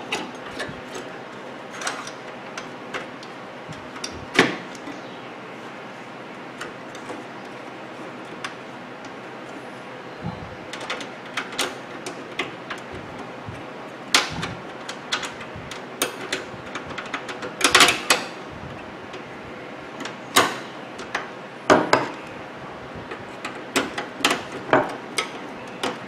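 Scattered clicks, knocks and clatter of a screwdriver and metal parts as the replacement high-voltage capacitor is screwed back into a microwave oven's chassis. The knocks are sparse at first and come more often in the second half.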